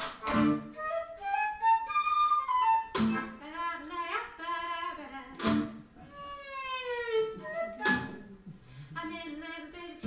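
Small gypsy-jazz swing band playing live with violin, flute, guitar and washboard: a lead melody climbs in quick runs and bends through a long sliding note, over accented chord hits about every two and a half seconds.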